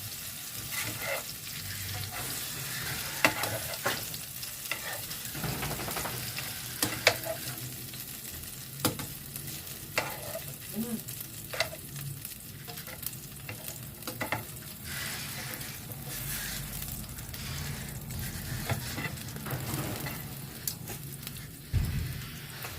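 Food sizzling in hot oil in a frying pan, with frequent sharp clicks and scrapes of a cooking utensil against the pan as it is stirred.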